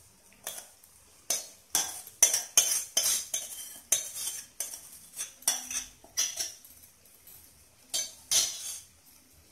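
Wooden spatula scraping and knocking against a steel bowl and kadai as marinated mutton is pushed out of the bowl into the pan: an irregular run of short, sharp scrapes and clinks, with a pause before the last two near the end.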